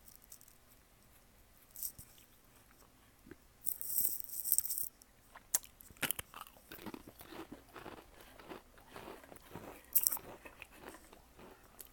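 A cat crunching and chewing a cheddar cheese Pringles crisp: a brief crackle around four seconds in, then a quick run of small crunches from about six seconds on.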